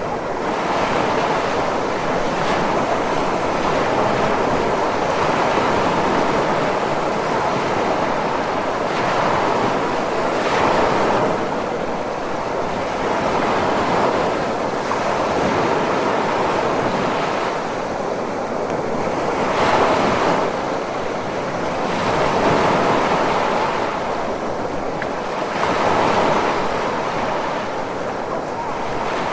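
Ocean surf: a continuous wash of breaking waves that swells and eases every few seconds, with a few stronger surges.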